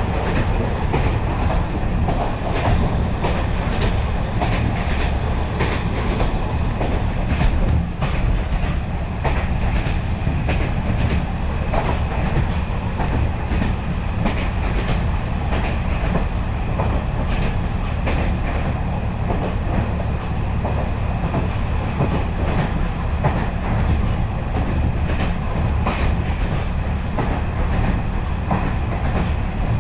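KiHa 40-series diesel railcar running at speed, heard from inside the carriage: a steady heavy rumble of engine and running gear, with the wheels clacking sharply and irregularly over rail joints.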